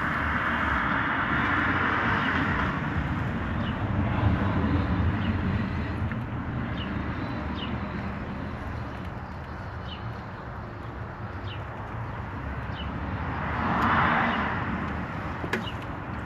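Outdoor background of a steady low rumble, with a rushing noise in the first couple of seconds and again swelling about fourteen seconds in, and a small bird chirping about once a second.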